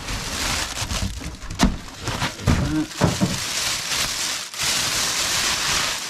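Cardboard packaging sliding and scraping as the outer box is pulled up off a boxed mini fridge, rustling throughout with a couple of sharp knocks, and a longer stretch of loud, even rustling near the end.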